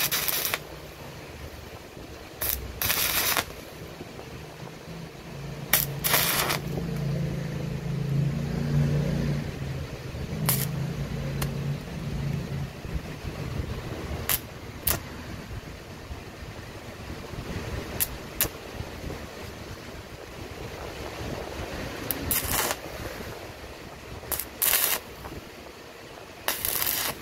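Stick welder's arc on a rusted exhaust muffler pipe, being struck and run in short spurts to weld on a steel patch: a dozen or so brief bursts of arc noise, each a second or less. A low hum runs for several seconds in the middle.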